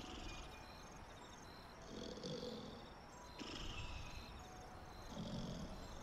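A person snoring in slow, even breaths: a low rumbling snore about two seconds in and again about five seconds in, each cycle also holding a hissy, higher breath about a second and a half after the rumble.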